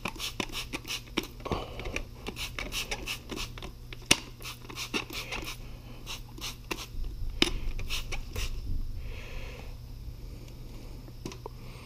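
Trigger spray bottle squirting micro-bubble leak-detector solution onto threaded gas pipe fittings, many short sprays in quick succession that thin out after about six seconds. A steady low hum from the running boiler lies under it.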